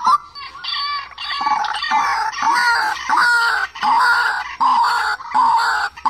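A rail known to Vietnamese trappers as quốc tơ (mặt lem) calling over and over. Its rapid notes come in runs of about a second, with short breaks between them.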